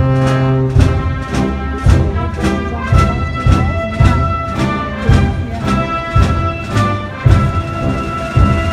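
A band playing a patriotic march, brass to the fore over a steady drum beat of about two strokes a second.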